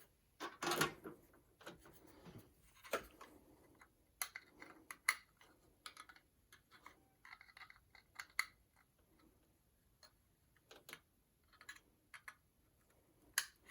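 Scattered light clicks and taps of hands handling a 2.5-inch SSD and its SATA cables inside a desktop PC case, with some faint rustling in between.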